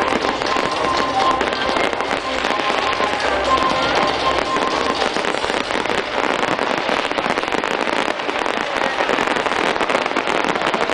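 Fireworks display in full swing: a dense, continuous crackle of rapid pops and bangs, with music underneath.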